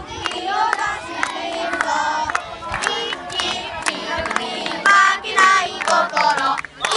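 A group of children singing a game chant together, with hand claps mixed in.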